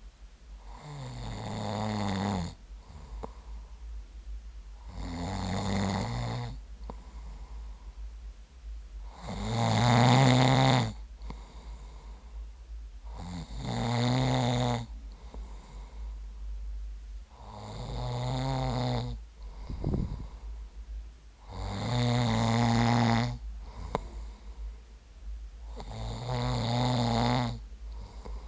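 A man snoring in his sleep, one long pitched snore about every four seconds, seven times over.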